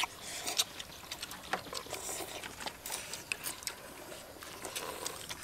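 People eating noodle soup: irregular slurping and chewing, with small clicks of chopsticks against ceramic bowls and the metal pot.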